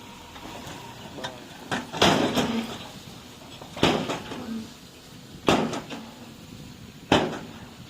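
A series of sharp knocks, four loud ones evenly spaced about a second and a half apart, each ringing briefly, with a couple of fainter clicks just before the first.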